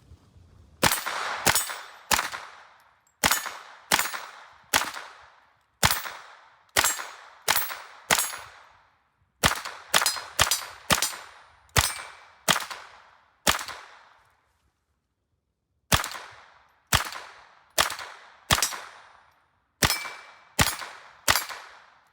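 A string of sharp .22 LR shots from an AR-15 pistol with a CMMG .22 LR conversion kit, fired steadily about two a second, many in quick pairs, with one pause of about two seconds near the end.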